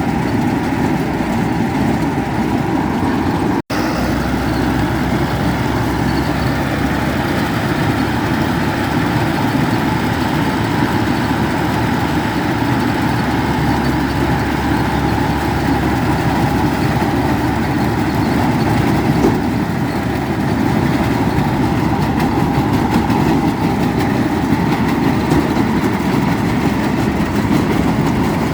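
Tractor engine running steadily under load with a two-row corn picker working behind it, a continuous loud mechanical drone. It cuts out for an instant about four seconds in.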